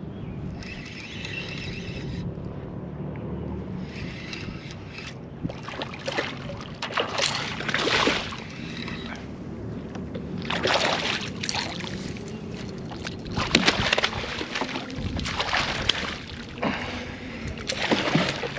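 Water splashing and sloshing beside a kayak as a hooked striped bass thrashes at the surface while being reeled in, a run of sharp splashes starting about a third of the way in.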